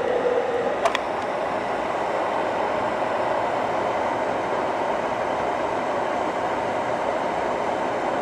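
Ovente KG83B glass electric kettle with 1.5 litres of water heating close to the boil, making a steady rushing rumble; the water is not yet at a full boil. A single sharp click comes about a second in.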